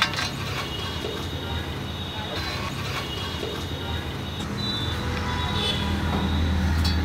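Oil sizzling in an iron karahi as a luchi deep-fries, over a steady low rumble, with a sharp metal clink at the start and another near the end.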